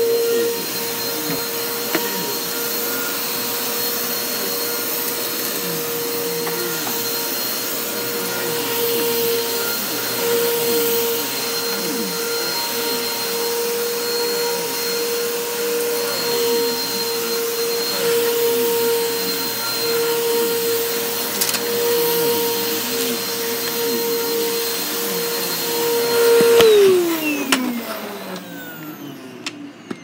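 Upright vacuum cleaner running steadily, an even motor whine over the rush of suction. About 27 seconds in it is switched off and the whine falls in pitch as the motor spins down.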